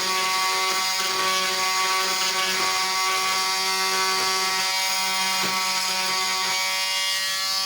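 Oscillating multi-tool (oscillating saw) running at a steady pitch while cutting wood.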